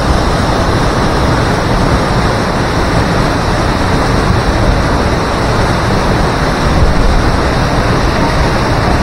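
Chatterbox Falls roaring: a loud, steady rush of falling water that holds even throughout.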